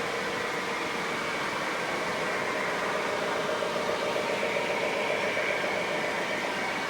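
O gauge model trains running on the layout: a steady whirring hum and rumble of electric motors and wheels on track, growing a little louder in the middle.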